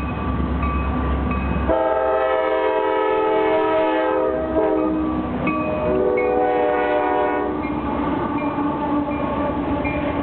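Diesel freight locomotive (a CSX EMD SD60) running as it approaches, then its multi-chime air horn sounds three blasts as it passes: a long one, a short one, then another long one. After the horn stops, the loaded auto-rack freight cars rumble past on the rails.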